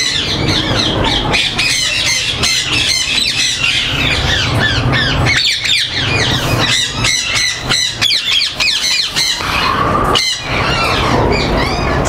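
Many caged ringneck and Alexandrine parakeets squawking and chattering at once, a dense, unbroken chorus of short shrill calls over a low steady hum.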